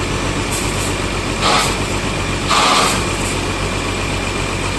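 Heavy bus engine idling steadily, with two short hisses about a second and a half and two and a half seconds in.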